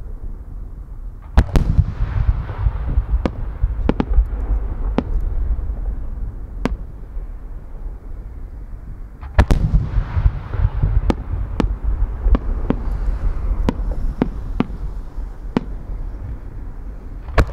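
Aerial firework shells bursting: two heavy booms, about a second and a half in and again near nine and a half seconds, each trailed by a deep rolling rumble, with a run of smaller sharp cracks in between.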